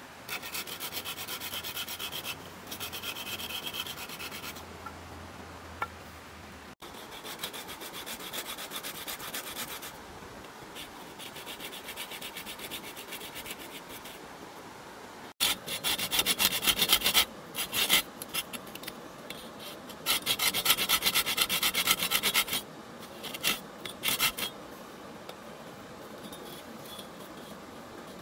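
Folding pruning saw cutting through green bamboo by hand: runs of quick back-and-forth strokes with short pauses between them, loudest in the second half.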